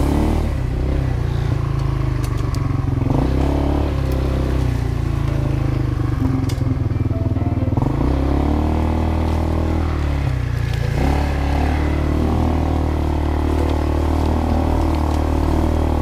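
ATV (quad bike) engine running under way, its pitch rising and falling several times as the throttle changes.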